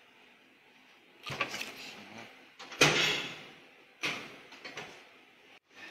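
High-frequency plastic welding press working: three sudden mechanical clunks, each trailing off over most of a second. The loudest comes about three seconds in, as the press head and die come down on the plastic sheet.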